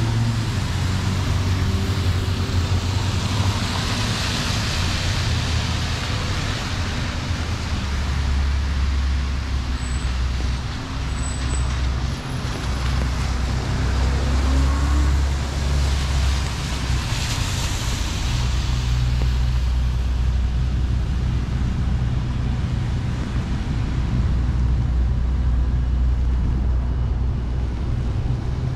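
Road traffic on a rainy city street: a steady low engine drone with the hiss of tyres on wet road, swelling as vehicles pass about four seconds in and again near the middle.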